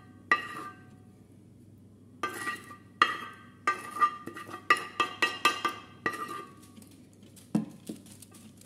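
A spoon clinking and scraping against a ceramic serving plate as the leftover marinade is worked off it into a stainless steel pot. Each tap rings briefly, with a quick run of taps in the middle.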